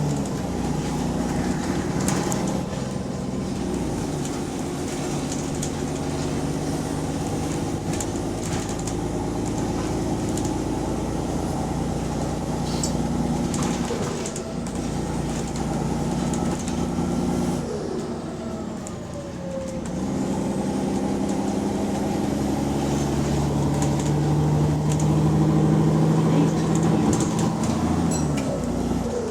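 Bus diesel engine running under way with an exhaust leak. The engine note holds and builds, drops away about two-thirds of the way through, builds again, then falls off near the end, with a few rattles and ticks over it.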